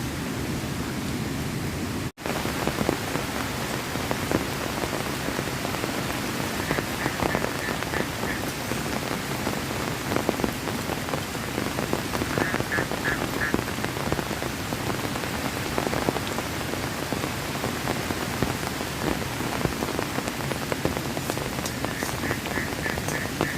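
Heavy rain falling steadily, with many loud individual drops striking close by; the sound cuts out for an instant about two seconds in. A faint, quick chirping trill comes three times.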